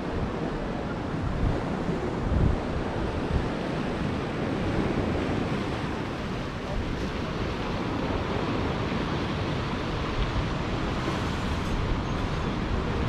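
Rough-sea surf breaking and washing over shoreline rocks below a sea wall, with gusty wind buffeting the microphone.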